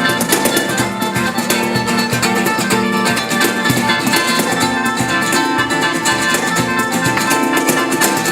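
A band playing instrumental music: a plucked string instrument over a steady beat of percussion.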